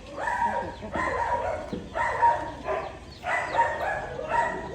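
An animal calling over and over, about five drawn-out calls, each with a steady pitch.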